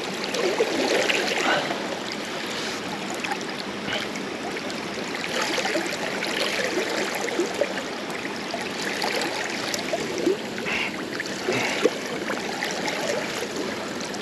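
River water flowing and rippling steadily, with a few brief louder moments in the water sound, the sharpest near the end.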